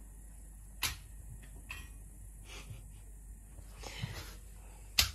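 A kitten hissing and spitting in a few short bursts, the sharpest about a second in and near the end.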